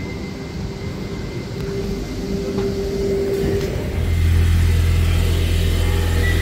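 Two coupled Z 8800/Z 20900 double-deck electric multiple units drawing to a stop at the platform, with a steady tone from the train that ends about three and a half seconds in. About four seconds in, a loud steady low hum from the standing train starts and holds. A high steady beep begins near the end as the doors open.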